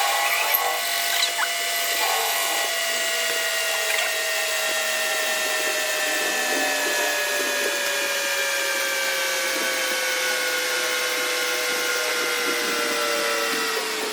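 Metal lathe machining a steel shaft: a steady whine made of several tones that slowly fall in pitch, with a few light knocks in the first seconds.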